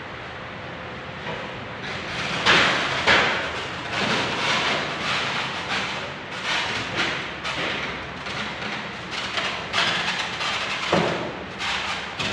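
Irregular thuds and knocks of a window-type air conditioner being handled, its metal casing bumping as it is picked up and lifted into a window housing. The two loudest knocks come about two and a half and three seconds in, with another shortly before the end.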